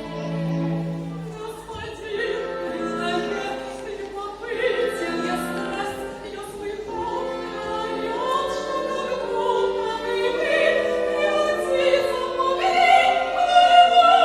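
Opera singing with orchestral accompaniment: voices hold sung notes over strings, growing louder towards the end.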